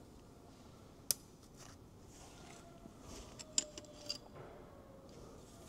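A few faint, sharp metallic clicks and clinks of hand tools and suspension hardware being handled, about a second in and twice more past the halfway point.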